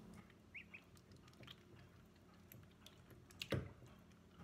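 Khaki Campbell ducklings giving a few soft peeps, with faint ticking and tapping in a wet stainless-steel sink; one louder knock about three and a half seconds in.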